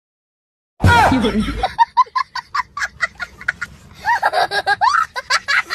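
Loud laughter that breaks in about a second in and runs on as a rapid string of short 'ha' bursts.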